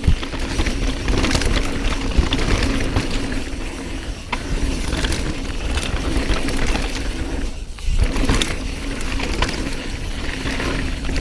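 Mountain bike descending a rough dirt trail: tyres rumbling over the ground, wind on the microphone, and frequent knocks and rattles from the bike as it hits bumps.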